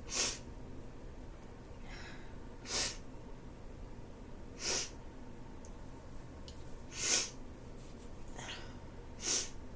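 A person with a head cold sniffling: five short, sharp sniffs through a congested nose, about two seconds apart, with fainter breaths between them.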